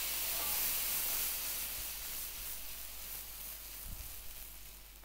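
Foaming butter sizzling and hissing in a frying pan around floured pieces of lamb brain, just after a splash of lemon juice; the sizzle slowly dies down. A soft knock near the end as the pan is shaken on the gas burner.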